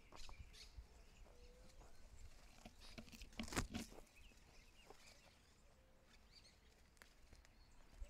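Footsteps on a rocky hiking trail: scattered crunches and scrapes of shoes on stones, the loudest cluster about three and a half seconds in.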